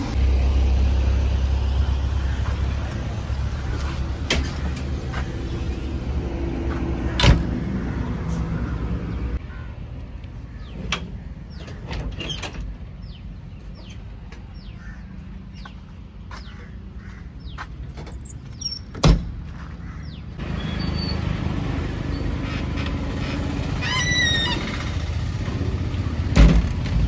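Low rumble of a JCB 3DX backhoe loader's diesel engine, broken by several sharp knocks and metal clanks around the cab. The rumble fades for a stretch in the middle and comes back near the end.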